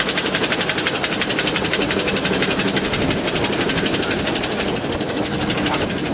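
Showman's steam road locomotive on the move close by, its engine and motion making a fast, even clatter.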